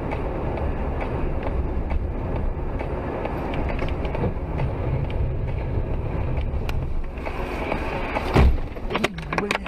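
Steady rumble of a vehicle driving, with one loud collision impact about eight and a half seconds in, followed by a few smaller knocks.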